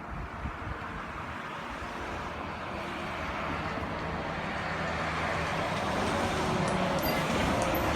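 A road vehicle driving past, its engine and tyre noise swelling steadily to a peak near the end and then starting to fade.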